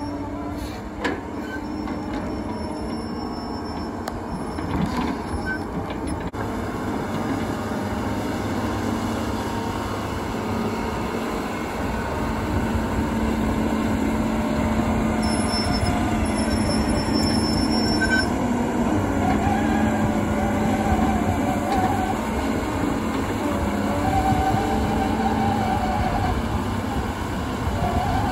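Hyundai Robex 200 LC crawler excavator on the move, its Cummins 6BT5.9 diesel running steadily under load while the steel tracks clank and squeal. The squealing comes in wavering stretches in the second half, as the machine gets louder.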